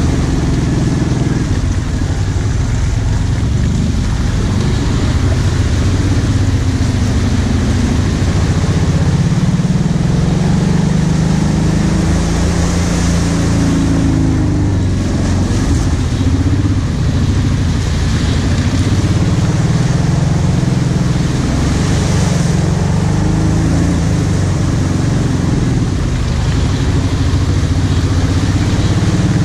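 Kawasaki KVF 750 Brute Force ATV's V-twin engine running steadily at low revs, the pitch rising and falling a little with the throttle while riding.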